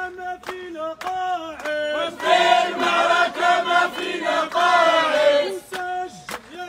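Protest crowd chanting Arabic slogans in call-and-response: one voice leads for about two seconds, the crowd answers together for about three seconds, and the single voice starts again near the end.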